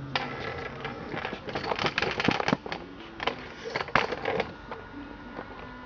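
Irregular clicks, taps and light rattles of the Stihl 056 Magnum chainsaw's air filter and cover being handled, with sharper knocks about two and four seconds in.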